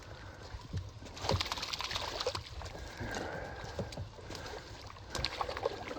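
Water splashing and sloshing against a small boat, with irregular knocks and clatter, as a gillnet with fish in it is hauled aboard. The splashing is busiest between about one and two and a half seconds in.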